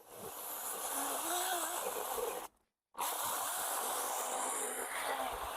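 Small cordless electric chainsaw cutting through a log, giving a steady, even noise with no clear pitch. It cuts out completely for about half a second roughly two and a half seconds in, then carries on as before.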